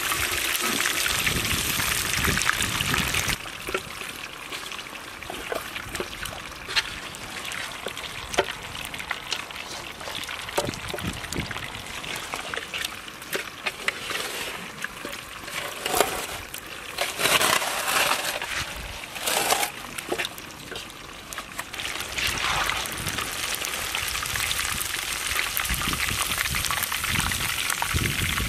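Chicken drumsticks deep-frying in hot oil in a large iron kadai, a dense sizzle. It is loud for the first few seconds, then drops to a quieter crackle with scattered clicks and a few louder noisy bursts, and a steady sizzle returns near the end.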